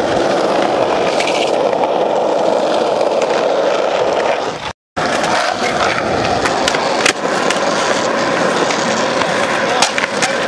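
Skateboard wheels rolling over rough asphalt, a steady gritty rumble. It breaks off for a moment a little before halfway, then runs on with a few sharp board clacks, most of them near the end.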